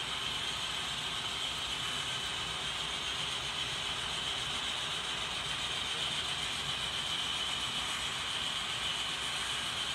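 HO scale model freight cars rolling slowly on the layout's track: a steady clatter and rumble of many small wheels on rail, with a steady high whine above it.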